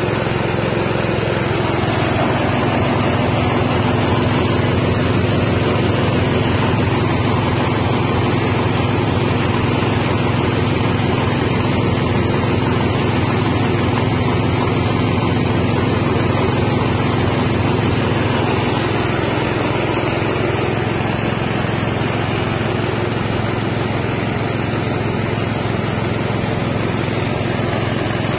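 Small rice milling machine driven by a 6.5 hp engine, running steadily under load as it mills paddy into rice and bran.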